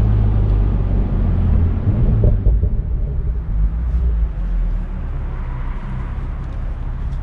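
BMW Z4 M40i's turbocharged 3.0-litre inline-six pulling hard through the exhaust, then the throttle lifts about two and a half seconds in and the engine note drops, with a few sharp exhaust pops before it settles into a steady, quieter cruise.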